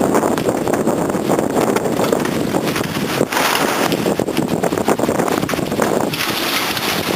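Hurricane winds gusting and buffeting the microphone. A higher hiss swells briefly about three seconds in and again near the end.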